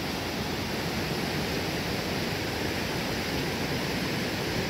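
Spokane River rapids: fast white water rushing steadily.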